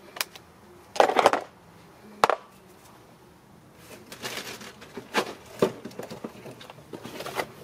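Scattered clinks and clatters of hand tools and brake parts being handled during a brake job, with a louder clatter about a second in and irregular knocks and rustles later.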